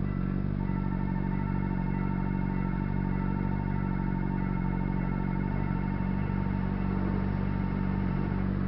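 Honda CBR600RR inline-four engine idling steadily while a railway level-crossing bell rings rapidly and continuously. A train starts rushing past near the end.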